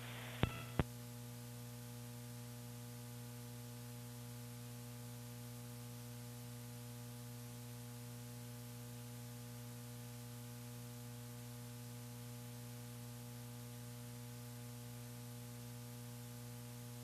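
Steady electrical hum with a faint hiss on the launch commentary audio line while it is open and no one is speaking. A couple of short clicks come within the first second.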